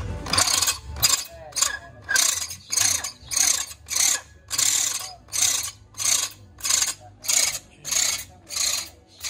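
Electric hand drill boring into the seized swingarm pivot shaft of a Kawasaki KLX, the bit grinding metal in short, evenly spaced bursts of about two a second. The pivot shaft is rusted solid from never being greased, so it is being drilled out to free the swingarm.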